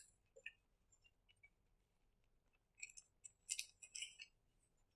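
Faint handling of paper on a desk: a few scattered light clicks, then a short cluster of crisp rustles and clicks a little before the end.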